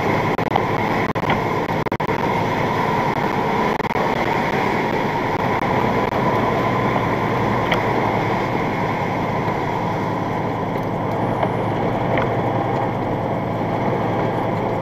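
Steady engine and road noise inside a truck's cab cruising at highway speed on a wet road.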